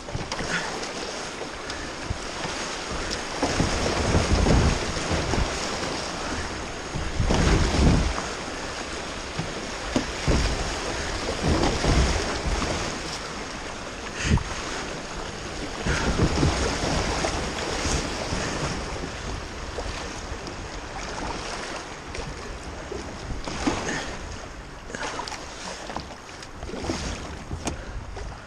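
Shallow creek water rushing through riffles around a kayak, with paddle strokes splashing. Wind buffets the microphone in low swells every few seconds, and there are a few short knocks.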